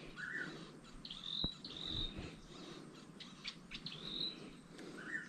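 Faint bird calls outdoors. A higher call that rises and then holds comes three times, and a lower short call comes near the start and again near the end. A single faint click sounds about a second and a half in.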